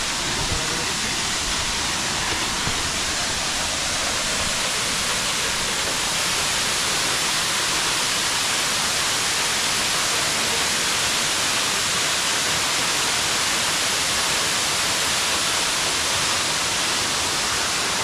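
A tall single-drop waterfall falling steadily into its plunge pool: an even, constant rush of water with no change in level.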